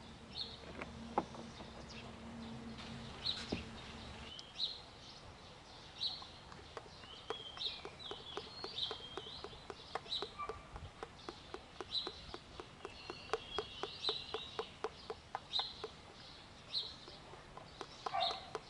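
Birds chirping outdoors with short, high calls throughout. From about six seconds in, motor oil glugs out of a plastic bottle into a funnel: a fast, regular glugging, about four glugs a second, as air bubbles back into the bottle.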